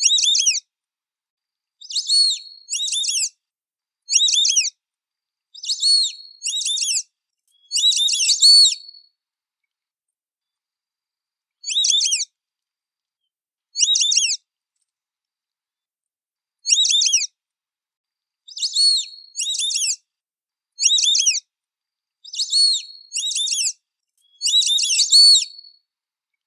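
White-faced whistling ducks (irerê) giving their high, clear whistled calls. The calls come as short phrases of one to three whistles every second or two, with a longer pause about ten seconds in.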